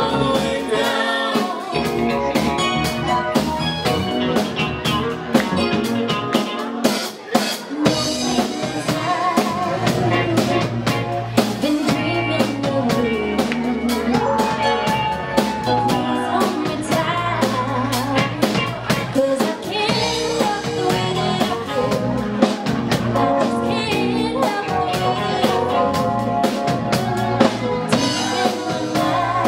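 Live band music: a woman singing lead into a microphone over a drum kit and the rest of the band.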